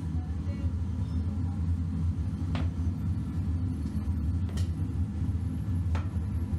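A steady low rumble, like a motor running, with three faint short ticks about two and a half, four and a half and six seconds in.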